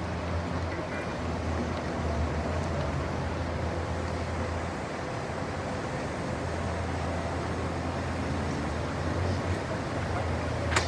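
Light city traffic ambience: a steady low rumble of traffic, with one sharp click near the end.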